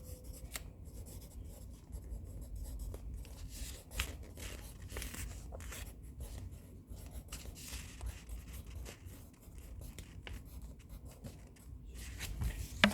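Pen or pencil writing on paper, with faint scratching and a few soft taps over a low steady room hum.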